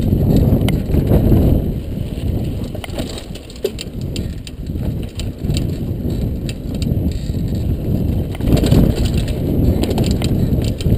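Mountain bike riding down a dirt singletrack, heard from a camera riding along: a steady low rumble of the ride with scattered clicks and rattles from the bike over rough ground, easing a little around four seconds in.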